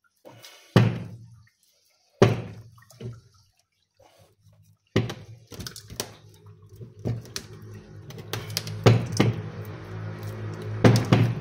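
Sharp knocks and clinks of greasy metal winch gear parts being handled and pulled apart, and background music coming in about five seconds in, with more clicks over it.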